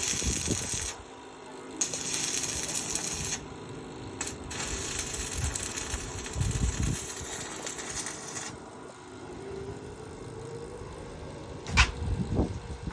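Welding arc crackling and hissing in three runs of a second or more, the last and longest about four seconds, with short breaks between them. A single sharp knock near the end.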